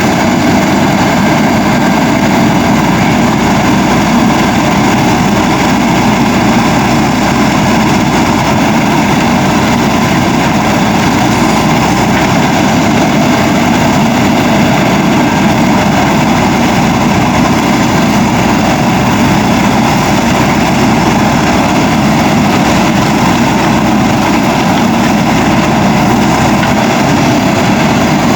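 Diesel engine of a JCB 3DX backhoe loader running steadily at an even speed.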